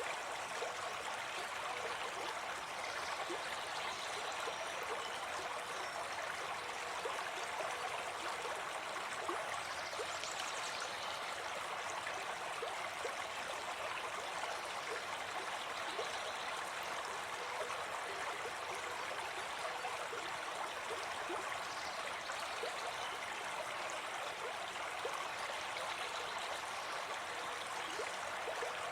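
Forest stream running and babbling over rocks, a steady even rush of water with small gurgles, with faint bird calls now and then in the background.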